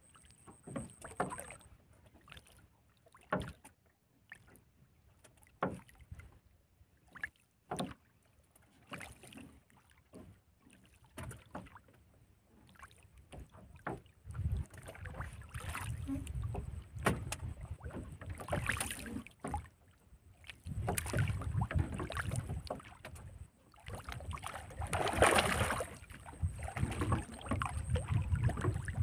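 Scattered light knocks and taps on a small wooden boat while a fishing handline is worked over the side. From about halfway a low wind rumble on the microphone sets in, and near the end a louder rushing noise of about a second stands out.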